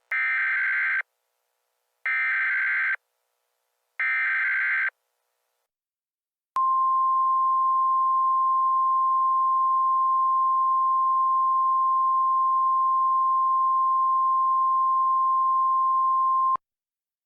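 Emergency Alert System header: three short bursts of the warbling data screech, about a second each and evenly spaced, then a single steady alert tone that holds for about ten seconds and cuts off abruptly.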